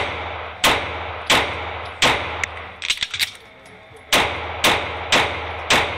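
9mm pistol firing a four-shot string at a steady pace, a pause of about two seconds with a few small clicks and clacks of a reload, then four more quick shots. Each shot rings out with the echo of an indoor range.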